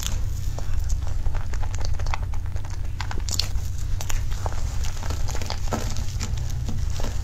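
Close-miked wet mouth sounds of eating soft durian crepe cake with cream: lip smacks and squishy chewing, heard as a steady run of small clicks over a low steady hum.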